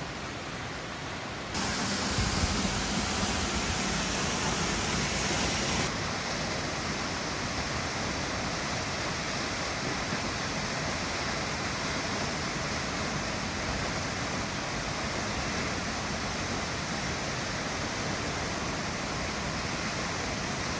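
Steady rush of falling water from South Falls, a 177-foot waterfall. It gets louder and brighter suddenly shortly after the start, then drops back to a slightly softer, even rush after a few seconds.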